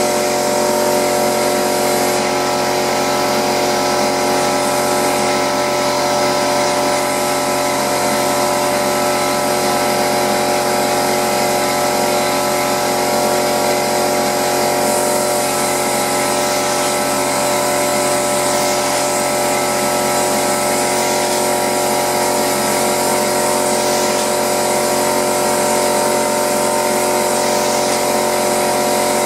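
Air compressor running steadily while a pneumatic drywall texture hopper gun sprays, a constant hum with a hiss of air on top.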